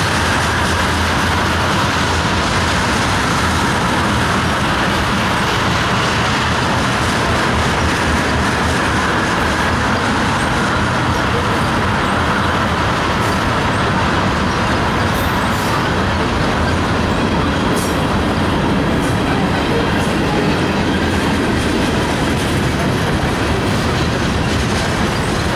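Norfolk Southern freight train of tank cars and covered hopper cars rolling past close by: steady noise of steel wheels running on the rails.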